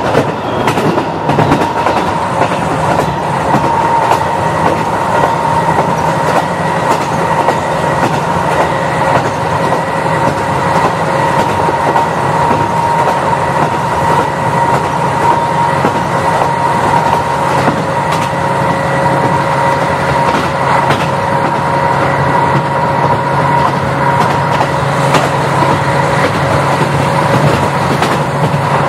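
KiHa 40 diesel railcar running steadily at speed: a constant engine drone with a few held tones, and the wheels clicking over rail joints.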